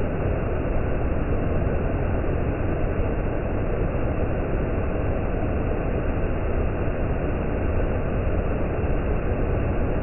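Waterfall, high water pouring over stepped rock ledges: a steady, deep rushing noise with no letup.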